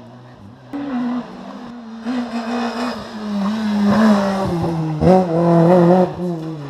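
Rally car engine at high revs, growing louder as the car approaches and passes, with the pitch wavering at its loudest about four to six seconds in.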